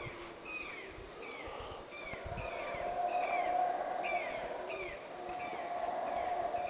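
Yucatán black howler monkeys roaring, a long drawn-out roar that swells about two seconds in and carries on. A high, falling chirp repeats over it every half-second or so.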